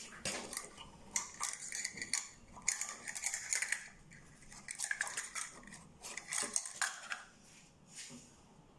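Wire whisk stirring thick cake batter in a plastic mixing bowl, its wires clicking and scraping against the bowl in irregular bursts that die away near the end.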